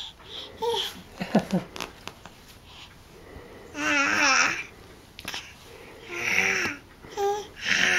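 Eight-month-old babies babbling in short, high-pitched bursts of squealing baby chatter a second or two apart.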